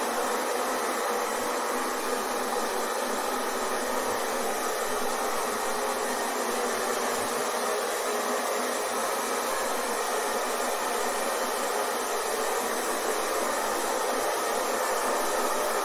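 Hair dryer running steadily: an even, unchanging whoosh of blown air and motor, with no low rumble, played as white noise to lull a baby to sleep.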